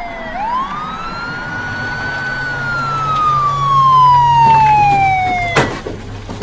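Police siren wailing: after a short dip its pitch sweeps up, then falls slowly for several seconds. It cuts off suddenly about five and a half seconds in with a sharp click.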